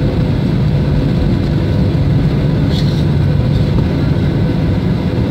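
Cabin noise inside a flydubai Boeing 737 taxiing: the jet engines running at low taxi power as a steady low rumble, with a faint steady hum above it.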